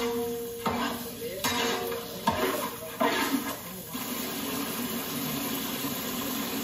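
A metal ladle stirring and scraping chicken curry in a large cooking pot, with several knocks and scrapes over the first few seconds, then a steady hiss from the hot pot.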